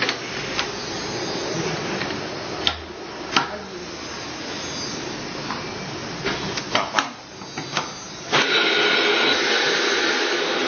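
Knocks and clatter as the stainless steel industrial blender is handled and loaded. About eight seconds in, its motor is switched on and runs steadily.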